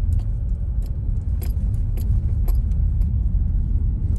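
Road noise inside a moving car's cabin: a steady low rumble, with a few light clicks over it, most of them in the middle of the stretch.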